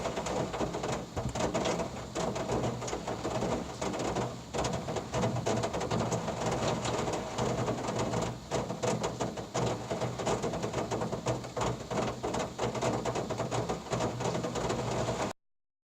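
Heavy tropical rain falling, with many close drops ticking and splashing on hard surfaces; it cuts off suddenly near the end.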